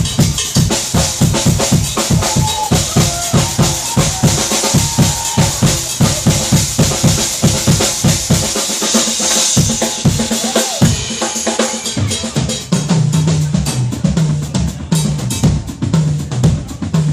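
Percussion solo on drum kit and percussion: fast, dense strikes with heavy bass drum and low drum hits, a wash of cymbal about halfway through, then low-pitched notes repeating in a steady pattern under the drumming toward the end.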